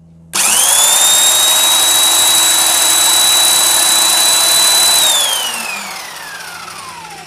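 DCK KPB22C corded electric 3/4-inch impact wrench spinning free with no load, the hammer not engaging: the motor starts suddenly, whines up to a steady high pitch at about 1920 rpm and holds there. About five seconds in the trigger is released and the whine falls steadily as it coasts down.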